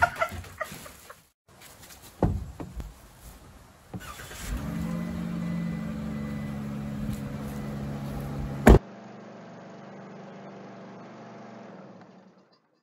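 Ram ProMaster van engine starting about four and a half seconds in and idling steadily. A single sharp knock comes near nine seconds, after which a quieter steady hum fades away.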